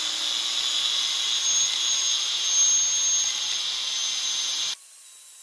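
Angle grinder spinning a 3D-printed serrated PLA cutoff disc against a pine block, a steady high-pitched whine and grinding. The plastic teeth melt and wear away, leaving only a shallow cut in the wood. About four and a half seconds in, the sound drops suddenly to a faint hum.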